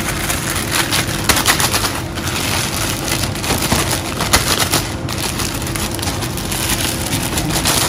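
Clear plastic zip-top bag crinkling and crackling continuously as it is squeezed and tossed by hand to coat sliced beef in cornstarch.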